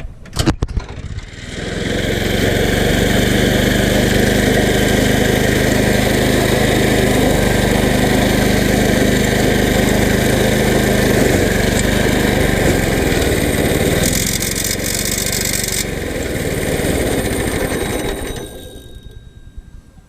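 Small gasoline go-kart engine running at a steady speed. It comes in loud about a second and a half in, holds steady, and fades away near the end.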